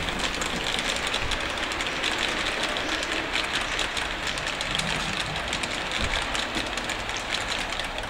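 A train running along the track: a steady rumbling hiss with fast, uneven clicking.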